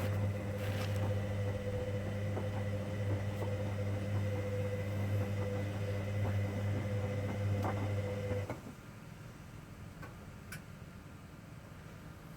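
Hoover Dynamic Next washing machine running in the main wash of a 90°C cotton cycle: a steady mechanical hum that cuts off suddenly about two-thirds of the way through, leaving only quieter machine sounds.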